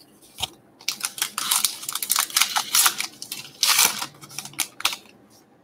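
A foil trading-card pack wrapper is torn open and crinkled, with the cards being handled. The run of crackling rustles stops shortly before the end.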